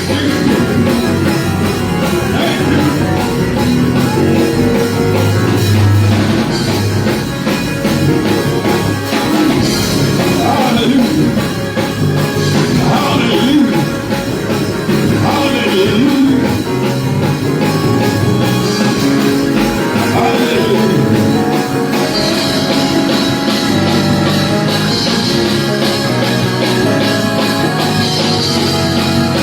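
Loud rock-style band music, with singing over it.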